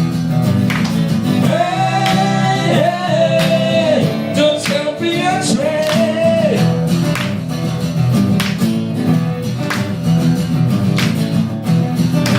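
Live band playing an instrumental passage of a guitar-led song, with a drum beat under it; a long held, bending lead melody sounds over the first half, then the band carries on under it.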